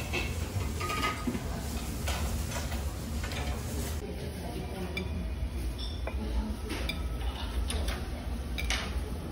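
Breakfast-restaurant background: a steady low hum with scattered light clinks of tableware. The background changes abruptly about four seconds in.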